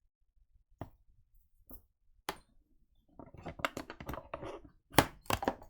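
Craft supplies handled on a tabletop: a few separate light knocks and taps, then from about halfway a busier stretch of small handling noises with one sharp tap near the end.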